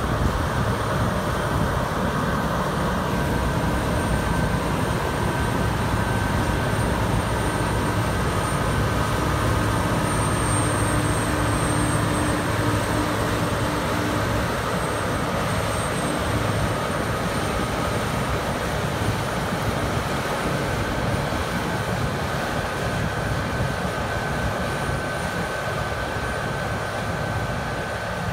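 Claas Lexion 570+ combine harvester at work: engine and threshing machinery running steadily, with a high thin whine over the rumble. It grows slightly fainter near the end as the combine moves away.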